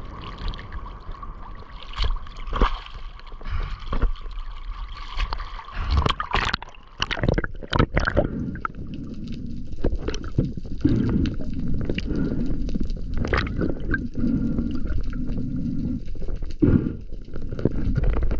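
Water gurgling and sloshing, with scattered sharp clicks and knocks, most of them bunched about six to eight seconds in.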